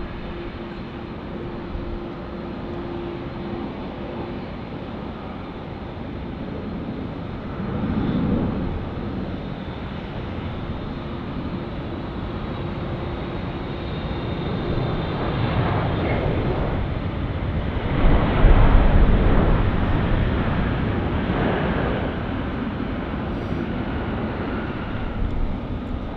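Boeing 777F cargo jet's twin GE90 turbofans during landing: steady jet noise, a brief swell of rumble about eight seconds in as the main gear touches down, then the noise builds on the rollout to its loudest around eighteen seconds in with the engines in reverse thrust, before easing off.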